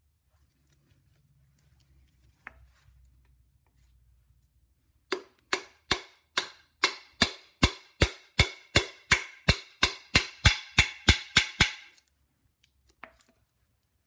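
Hammer striking a socket to drive a brass plug flush into a Jeep 4.0 straight-six's cast iron block: about twenty sharp metallic taps, about three a second, each ringing briefly.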